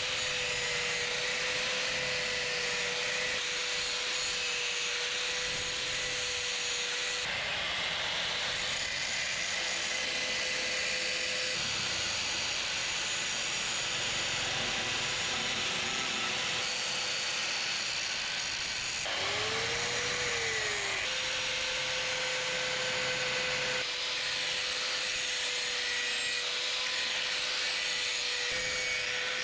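Electric grinder grinding leaf-spring steel: a steady motor whine over a harsh grinding hiss. The sound changes abruptly several times, and about 20 seconds in the whine dips and comes back up as the tool is loaded and eased off.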